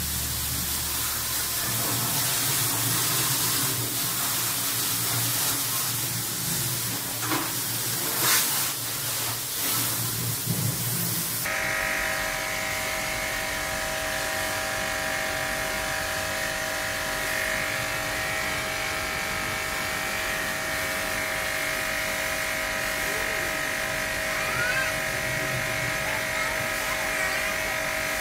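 Water jet from an electric pressure washer hissing as it sprays a plastic air-conditioner panel. About eleven seconds in this gives way abruptly to the compact electric pressure washer's motor and pump running with a steady whine.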